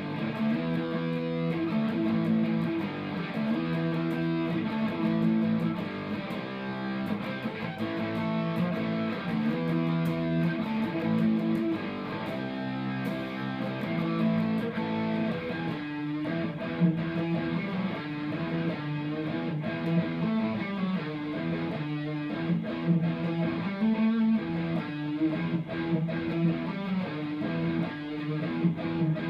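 Electric guitar, an Ibanez RG, played through a Marshall MG101CFX solid-state combo amp: chords and single notes ringing out, changing every second or so.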